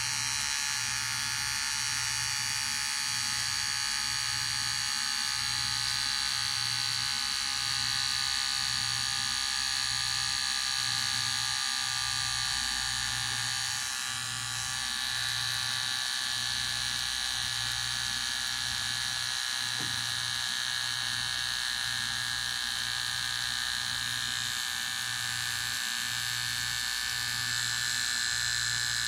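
Electric hair clipper running continuously, a steady motor buzz with a high whine, dipping briefly about halfway through.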